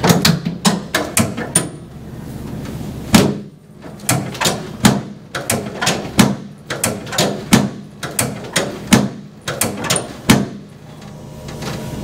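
Rapid series of sharp clacks from chiropractic adjusting along the lumbar vertebrae, about two to three a second, with short pauses; the loudest come about three seconds in and near the end.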